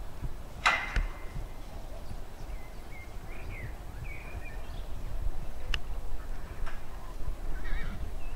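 Outdoor wind rumbling on the microphone, with a few faint bird chirps and a single sharp click a little under a second in.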